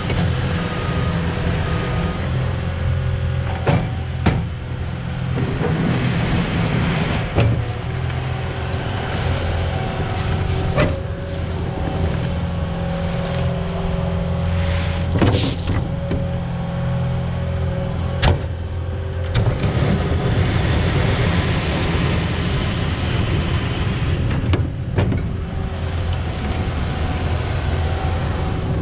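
Caterpillar 259 compact track loader running and working, its diesel engine steady under load, with a handful of sharp clanks scattered through. A reversing alarm beeps in the first couple of seconds.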